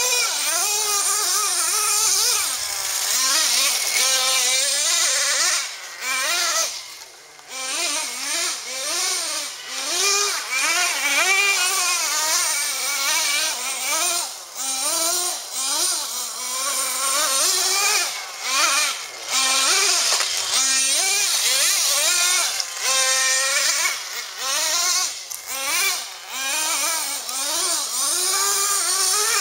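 Traxxas Jato 3.3 radio-controlled truck's two-stroke nitro engine, revving up and down over and over as the truck is driven, with a short drop in level about seven seconds in.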